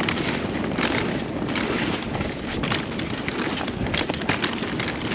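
Mountain bike riding down a wet, rooty, rocky trail: the tyres rolling over roots and rocks, with a constant run of small knocks and rattles from the bike.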